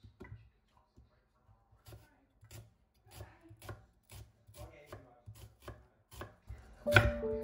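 Kitchen knife cutting through an onion onto a wooden cutting board, faint regular strikes about two a second that quicken slightly. Background music comes in near the end.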